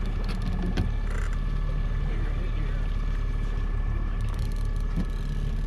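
Boat's outboard motor running steadily at trolling speed, a constant low hum with a faint whine above it. A couple of sharp knocks come within the first second as a rod is pulled from its holder.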